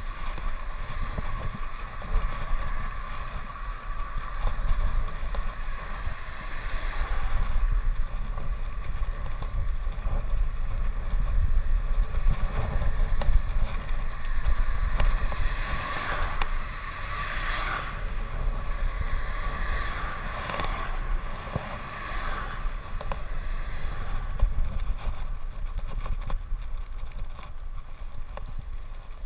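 Wind buffeting the microphone of a handlebar-mounted camera on a moving road bicycle, with the tyres rumbling on the tarmac. Several vehicles swish past in the second half.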